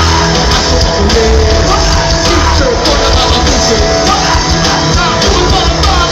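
Loud live music with a man singing into a microphone over a band.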